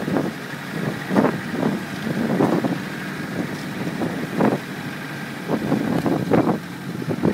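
Land Rover driving off-road across a field, heard from inside the cab: the engine runs steadily under irregular knocks and rattles from the body jolting over rough ground.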